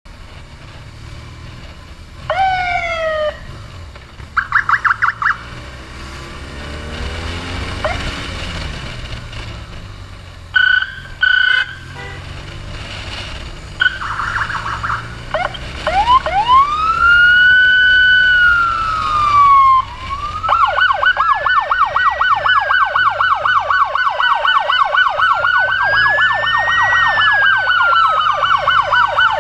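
Electronic emergency siren on a responding medic motorcycle, switching between modes: short falling chirps about two seconds in, a quick warble, two short blasts around eleven seconds, a slow rising-and-falling wail, then from about twenty seconds in a fast yelp with a slower wail sweeping up and down alongside it. A low engine and road rumble runs underneath.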